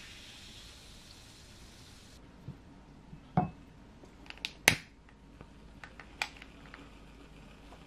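Carbonated ade fizzing in a glass over ice, a steady hiss that cuts off about two seconds in. Then a handful of sharp clicks and taps, the loudest about three and a half and almost five seconds in, as a long lighter is clicked to light a solid-fuel puck in a cast-iron tabletop burner.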